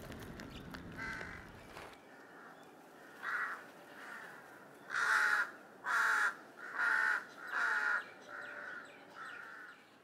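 Crows cawing, about eight calls in a row, each about half a second long, the loudest a run of four in the second half.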